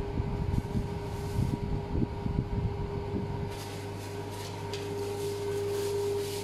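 Steady hum of a fan or air conditioning, with muffled rubbing and bumps in the first half, then light crinkling as disposable gloves are pulled on over the second half.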